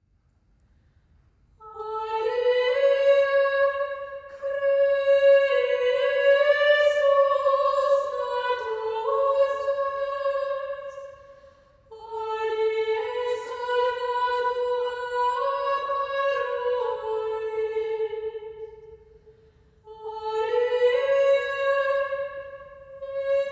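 Upper-voice choir of women singing one melody line in unison, unaccompanied, in three phrases with short pauses for breath between them.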